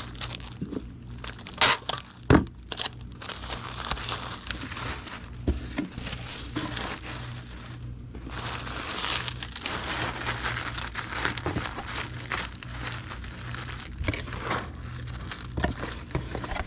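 Bubble wrap crinkling and rustling as it is rolled around a small figure, with two sharp loud snaps about two seconds in.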